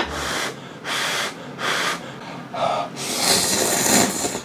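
A person slurping instant ramen noodles (Samyang ramyun) in about four short slurps, then one longer, louder slurp near the end.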